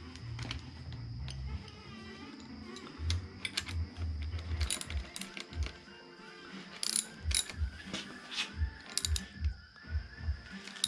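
Metal hand tools clicking and clinking as a small dirt bike is reassembled. Sharp, irregular clicks come through, with a low, regular thump under them in the second half.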